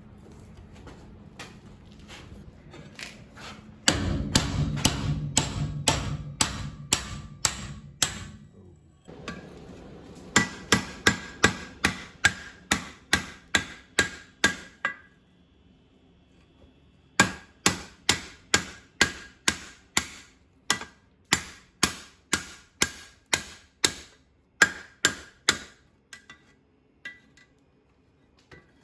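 Blacksmith's hammer striking hot steel on an anvil in steady runs of about two blows a second, drawing out and evening up a forged holdfast, with a short metallic ring after many blows and brief pauses between runs. A loud low rumble sits under the first few seconds of blows.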